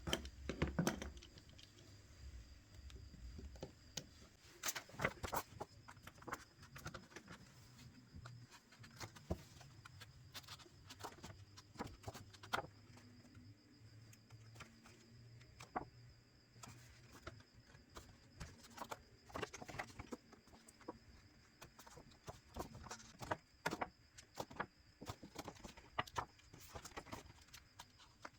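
Faint, irregular clicks and small taps of precision tools and small parts being handled while a smartphone is taken apart.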